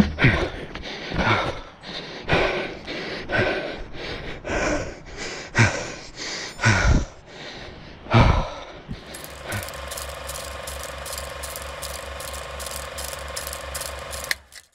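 Thuds and rustles about once a second from a handheld camera carried while running along a road. From about nine seconds in, a steady mechanical clicking of about four a second over a held tone, which cuts off just before the end.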